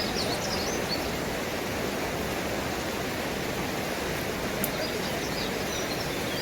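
Steady rushing hiss, with small birds twittering faintly near the start and again near the end.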